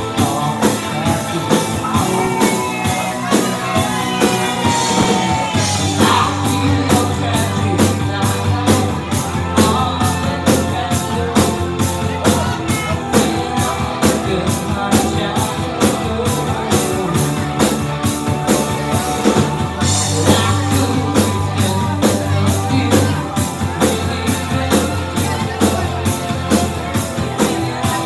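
A live rock band playing loudly: a drum kit keeping a steady beat on cymbals, with bass and electric guitar, and a woman singing into a microphone.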